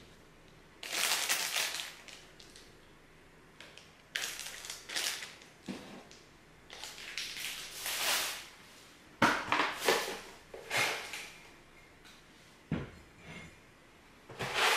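Irregular bursts of rustling and crinkling handling noise, with quiet gaps between them and a sharp knock near the end.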